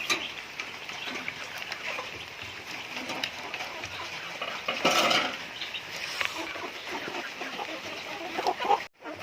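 Domestic chickens clucking, with a louder burst of calls about five seconds in.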